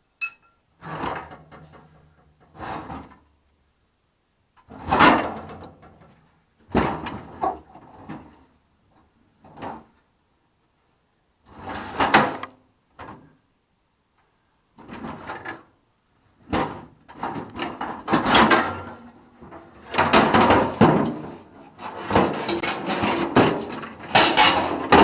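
Metal scraping and clunking in short bursts with breaks between them, getting busier near the end, as a car's fuel tank and its fittings are worked loose from underneath.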